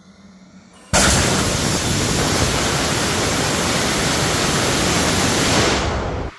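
Demo A2 2 kN ethanol/nitrous-oxide pressure-fed liquid rocket engine firing in a vertical static test: a loud, steady rushing noise that starts abruptly about a second in and cuts off sharply just before the end.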